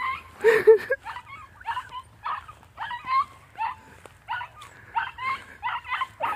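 Puppy yipping over and over: short, high yelps about two to three a second, with one louder, lower call about half a second in.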